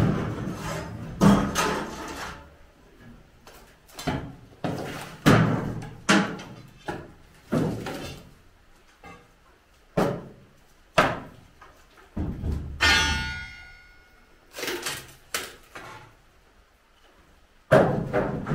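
Timber formwork being stripped from a concrete slab: irregular hammer blows and hollow wooden knocks as boards and props are struck loose and clatter onto the planks. About 13 seconds in there is one short, high-pitched ringing squeal.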